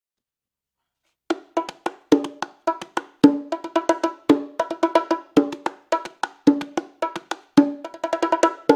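LP Aspire bongos played by hand in a cumbia pattern: quick strokes on the two drums, with a stronger low stroke about once a second. The playing starts a little over a second in.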